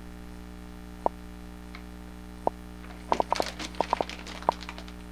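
Packages of soft-plastic fishing baits being handled on a table: a couple of single sharp taps, then from about three seconds in a quick run of plastic crinkles and clicks, over a steady electrical hum.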